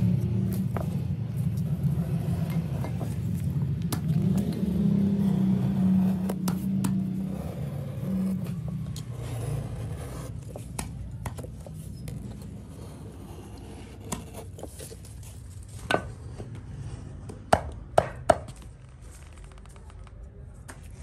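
Sharp taps and scrapes of a steel chisel splitting thin boards into strips, with a quick cluster of three taps near the end. A low rumble fills the first half and then fades.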